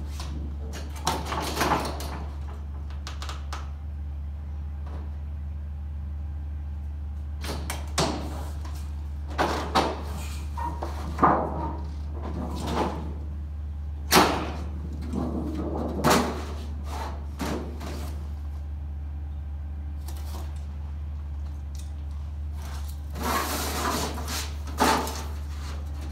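Aluminum trim coil being handled and bent on a portable siding brake: the thin sheet wobbling and rattling and the brake clanking as its handles are worked, in a string of separate clanks and rattles, the sharpest about 14 seconds in. A steady low hum runs underneath.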